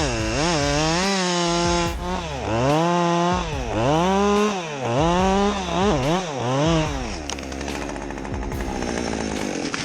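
Chainsaw engine being revved up and let back down over and over, its pitch swinging up and falling back about once a second, then running more steadily near the end.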